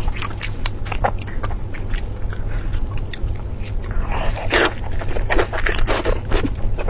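Close-miked eating sounds: many short, sharp crunches and wet mouth noises from chewing food, with one longer smeared sound about four and a half seconds in. A steady low hum runs underneath.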